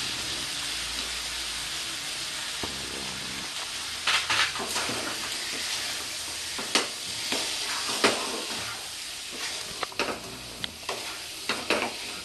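Potato chunks and spice pastes sizzling in oil in a non-stick kadai, with a steady hiss. From about four seconds in, a wooden spatula stirring them scrapes and knocks against the pan.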